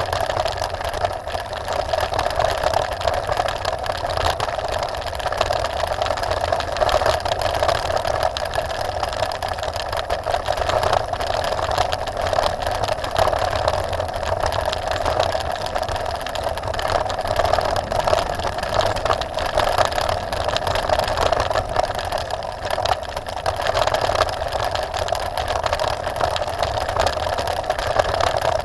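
Trek Top Fuel 9.8 mountain bike rolling fast down a gravel track: tyres on loose gravel and the bike rattling, over a steady buzz.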